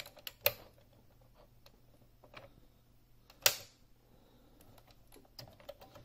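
Scattered sharp plastic clicks and knocks as the underside of a Unicomp Ultra Classic keyboard is handled and its fold-out tilt feet are worked. The loudest click comes about three and a half seconds in, with a cluster of smaller ticks near the end.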